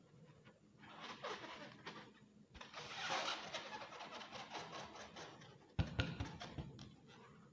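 Inflated latex balloon rubbed and squeezed by hand, making stuttering rubbery squeaks in two stretches, then a sharp knock a little before the end, followed by a few softer ones.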